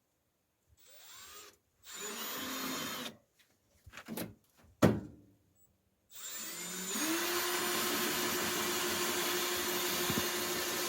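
Power drill spinning up about six seconds in and then running steadily at one speed for about five seconds. Before it come a few short bursts of noise and a sharp knock, the loudest moment.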